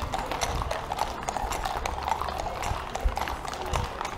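Hooves of several horses and ponies clip-clopping at a walk on an asphalt street, many strikes overlapping in an irregular patter.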